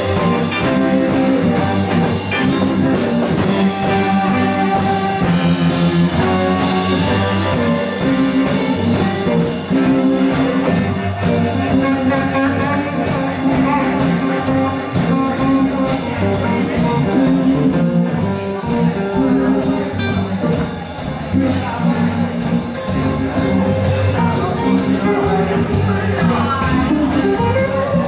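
Live blues band playing: electric guitars over a drum kit keeping a steady beat.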